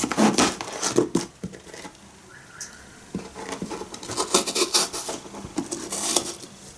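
Small kitchen knife cutting a firm apple on a plastic cutting board: crunching cuts and taps of the blade on the board. The cutting comes in two spells, with a quieter pause about two seconds in.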